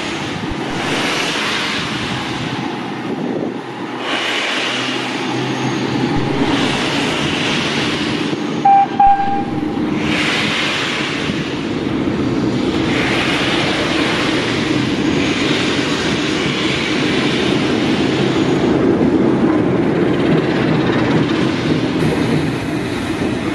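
A Class 08 diesel shunter's English Electric six-cylinder engine running steadily as it moves slowly along yard track, under loud hissing in repeated surges from a steam locomotive close by. About nine seconds in there is a brief, loud high-pitched toot.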